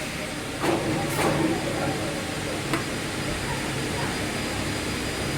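Compressed air hissing in two short blasts about a second in, as air is let into the pneumatic cylinder that tensions the sanding belt, over a steady hum of workshop machinery, with a small click near the middle.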